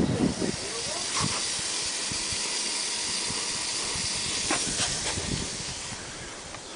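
Water hissing steadily from a hose during drain clearing, with a few faint knocks, easing off near the end.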